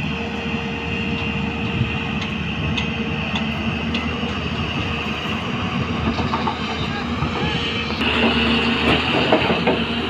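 Hyundai 215 crawler excavator working, its diesel engine running steadily with a high whine, as it digs and loads soil into a tipper truck. The sound grows louder and rougher about eight seconds in.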